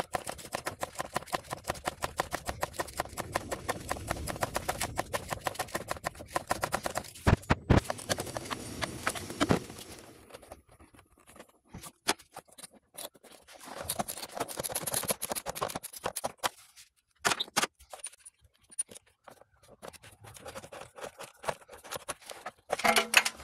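A 3/8-inch ratchet on a swivel socket and extension clicking in a steady, regular run for about ten seconds as it backs out an engine oil pressure sensor. Then come scattered fainter clicks and scrapes as the loosened sensor is turned out by hand.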